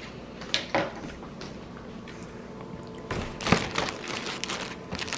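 Cellophane treat bags crinkling as a hand handles them inside a paper shopping bag, in scattered short rustles, the loudest about three and a half seconds in.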